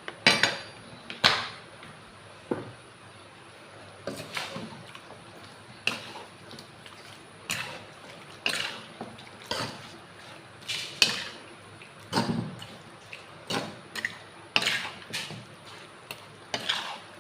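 Kitchen utensils and dishes knocking and scraping at irregular intervals, some strikes with a short metallic ring.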